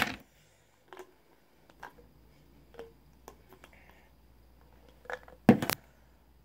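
Scattered small clicks and taps of a plastic jar of gummy vitamins being handled. A louder knock comes about five and a half seconds in, as the jar is set down.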